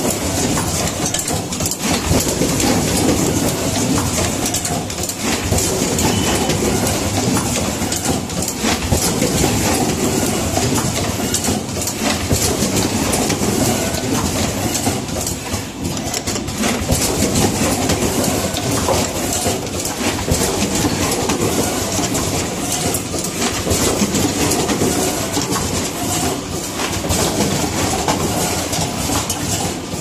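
Automatic power-cord crimping machine running: a steady, dense clatter of many quick mechanical clicks and rattles.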